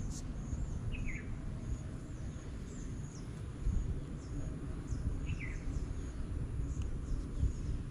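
Small birds chirping in many short, high notes, with two louder falling calls about a second in and again about five seconds in, over a steady low rumble.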